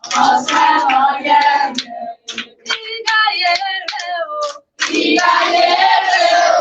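A group of children and women singing a song together in unison, with hand claps along the beat.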